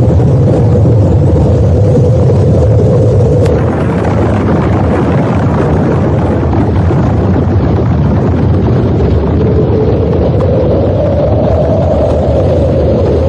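Loud, continuous low rumbling noise with a steady hum-like band in the middle. There is a brief click about three and a half seconds in, after which it is a little quieter.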